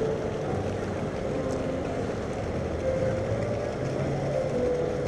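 A boat engine running steadily at low speed: an even low rumble with a faint hum over it.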